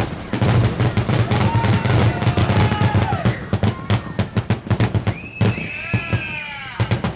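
Fireworks going off in rapid crackling bursts, with whistling shells that fall in pitch, a group of them together about five seconds in.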